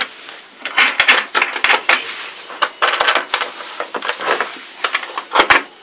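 Irregular clattering, clicks and knocks of hard parts being handled as a tight-fitting CNC-cut dust boot piece is worked off its mount by hand.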